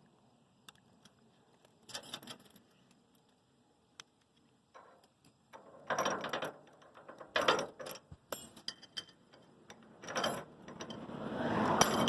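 Small steel chain and pliers clinking and rattling in scattered bursts as the chain is worked onto a lynch pin, with a longer stretch of jangling near the end.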